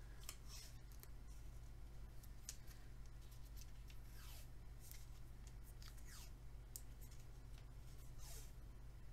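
Quiet hand-work noises as insulation is fitted on a small electronics repair: short clicks and scrapes, with a few falling scraping strokes about two seconds apart.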